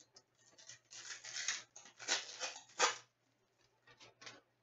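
Trading cards being handled: rustling and sliding as they are picked up and stacked, with a few light taps, over a faint steady hum.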